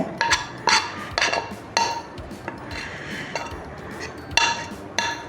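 A metal spoon clinking and scraping against steel cookware, about six ringing clinks at uneven intervals with softer scraping between, as the cooked ginger-jaggery candy mixture is worked out onto a greased steel plate.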